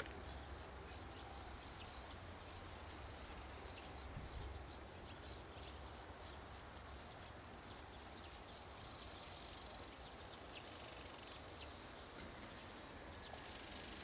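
Faint outdoor ambience with a steady, high-pitched insect drone, and a few faint ticks.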